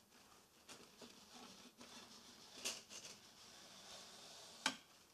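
Faint scraping and a few light clicks as a metal rod is pushed through the centre holes of a row of plastic SMD component reels. The sharpest click comes near the end.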